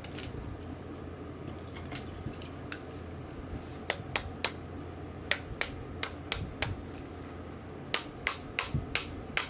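Sharp, irregular clicks and taps of small metal reel parts and tools being handled during disassembly of a fishing reel: a few faint ticks at first, then about fifteen crisp clicks from about four seconds in, over a steady low hum.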